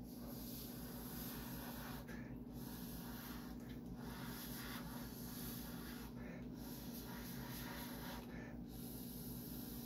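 Breath blown steadily through a thin plastic tube to push wet alcohol ink across resin, with brief pauses for breath about four times.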